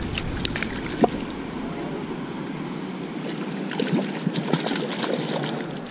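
A landing net being moved about in shallow river water: splashing and sloshing, with a few sharp clicks and knocks scattered through it.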